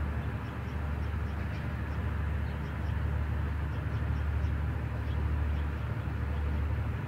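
Steady, low, distant motor rumble over an even outdoor background hiss, with faint short high chirps scattered through it.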